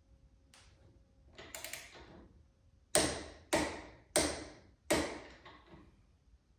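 Click-type torque wrench on a 3/4 socket tightening a motorcycle front axle nut to 55 ft-lb. Some soft metallic rattling of the socket and wrench comes first, then four sharp clicks about half a second apart as the wrench signals that the set torque is reached.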